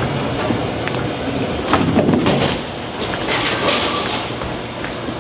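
Bowling alley din: a bowling ball rolling down the lane with a steady rumble, and a clatter about two seconds in.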